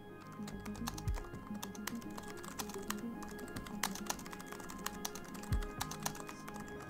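Laptop keyboard typing: quick, irregular key clicks over background music with sustained notes. Two brief low thuds stand out, about a second in and again near the end.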